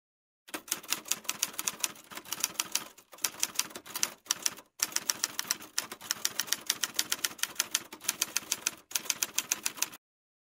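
Typewriter keystroke sound effect: rapid, even keystrokes, several a second, in runs with a few short breaks, stopping near the end as text finishes typing onto the screen.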